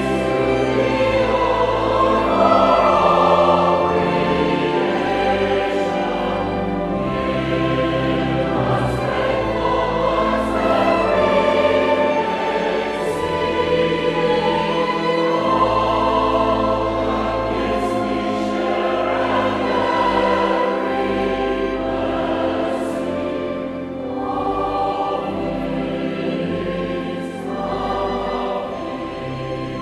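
A large choir of about sixty voices singing a slow, sustained choral anthem with a small instrumental ensemble underneath. Their 's' consonants hiss through together now and then.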